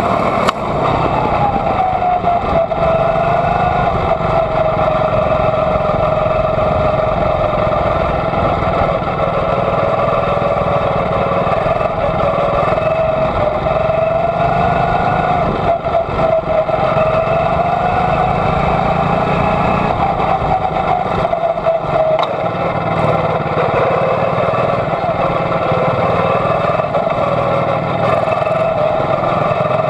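Onboard sound of a Junior Honda quarter midget's single-cylinder Honda engine running hard at racing speed. Its pitch rises and falls gently as the car goes around the oval.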